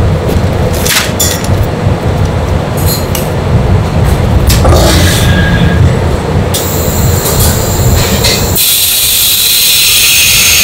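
Chamber vacuum sealer running its pump with a steady low drone while it draws the air out around a bagged package, with a few clicks in the first couple of seconds. Near the end the pump drops away and a loud hiss follows as air rushes back into the chamber after the seal.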